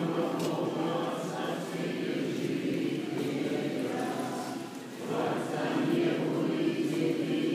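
Choir chanting Orthodox liturgical singing in sustained, overlapping voices, with a brief lull just before the singing swells again past the middle.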